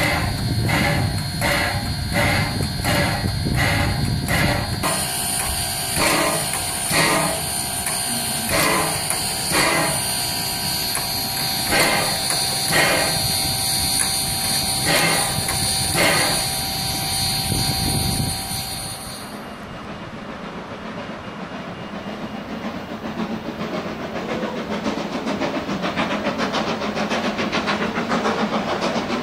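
Steam-driven air pump on a standing AC16 steam locomotive working over steam hiss and a steady high ring, beating about twice a second at first and slowing to about once a second. About two-thirds of the way in this gives way to the quieter rumble of the train running at a distance, growing louder toward the end.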